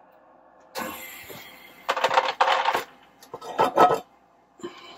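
Metal tongs clinking and scraping against the stainless-steel inner pot and metal trivet of an Instant Pot as the trivet with the roast is lifted out, in several bursts of clatter.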